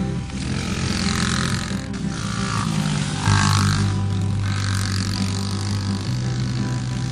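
Dirt bike engine revving up and down, with a louder burst of revs about three seconds in.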